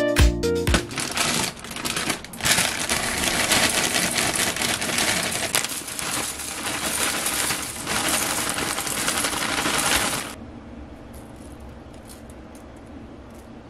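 Breakfast cereal flakes poured from a plastic bag into a glass mug, pattering and clinking against the glass with a rustle of the bag. The pouring stops about ten seconds in.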